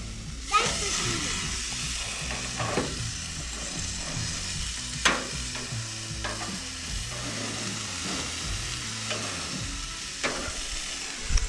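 Hamburger patties sizzling on a hot gas grill as they are flipped with tongs; the sizzle grows louder about half a second in. A few sharp clicks from the metal tongs against the grill grates.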